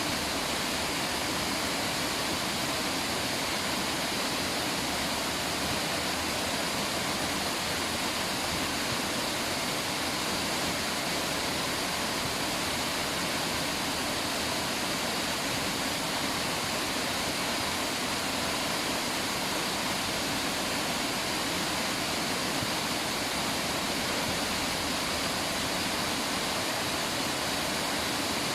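River water rushing, a steady, unbroken wash of noise.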